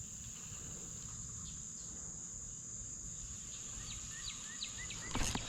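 Insects, crickets by the sound, trilling steadily at a high pitch. Past halfway a fast run of short rising chirps joins in, and there is one brief knock about five seconds in.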